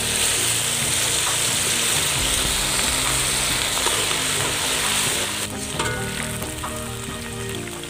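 Turkey berries deep-frying in hot oil in an iron wok: a loud, steady sizzle of the oil bubbling around the berries. The sizzle eases off about five and a half seconds in, with a few light clicks as a slotted ladle stirs them.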